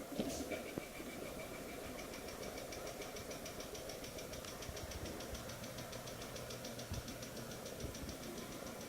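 Furukawa FVS-3 vacuum packaging machine running through a cycle: a click at the start, then a steady high whine, and from about two seconds in a fast even pulsing of about eight beats a second over a continuous low mechanical hum.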